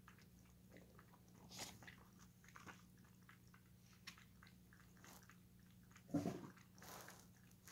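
Faint rustling and soft clicks of a paperback picture book's pages being turned by hand, over a low steady hum. A brief low voice sound comes about six seconds in.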